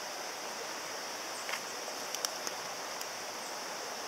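Steady rush of flowing stream water, with a few faint short clicks about halfway through.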